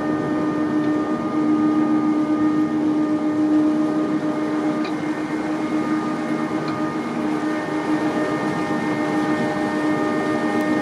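Tour boat's engine running at a steady cruising drone, with a rushing noise under it.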